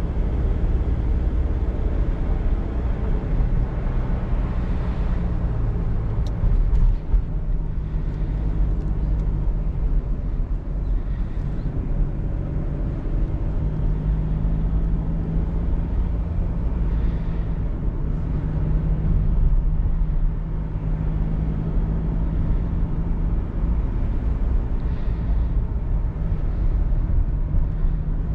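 Mercedes-Benz E220d cabriolet's four-cylinder diesel engine running steadily on the move, heard with the roof down among wind and road noise.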